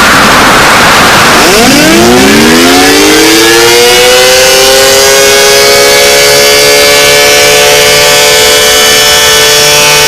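Siren winding up: after about a second and a half of loud hiss, two notes at once slide up in pitch and settle into a steady, loud, held chord, in the manner of a dual-tone civil defense siren.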